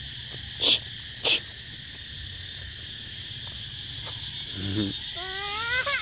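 Steady high insect chirring, like crickets, with two sharp knocks about a second in. Near the end comes a short low call, then a run of quick rising calls.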